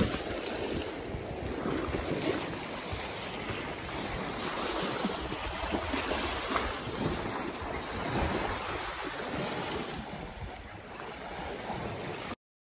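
Small waves washing and lapping onto a sandy shore, with wind buffeting the microphone. The sound cuts off suddenly near the end.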